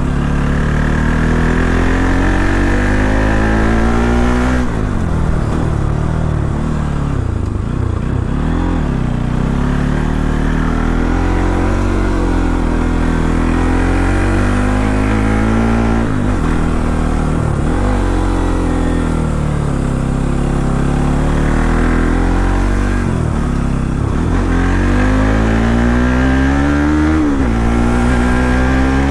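Bajaj Pulsar NS200's single-cylinder engine pulling on the road, its revs climbing and then dropping sharply several times as the rider accelerates through the gears.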